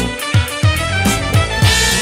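Background music with a steady drum beat and pitched instruments.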